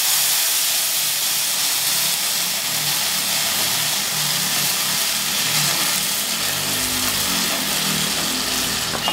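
Blended tomato paste hitting hot oil in a frying pan of fried onions and peas: a loud, steady sizzling hiss as the liquid boils off in steam.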